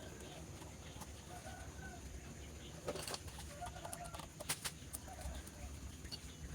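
Faint, short animal calls come a few at a time over a low steady hum, with a few sharp light clicks.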